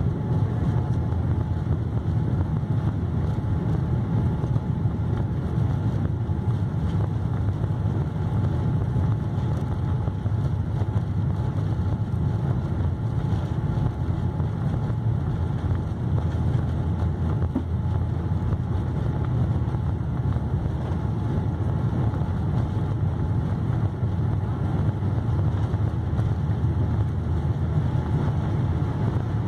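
Steady low rumble inside the cabin of a Boeing 787-8 taxiing on the ground, with a faint steady whine above it.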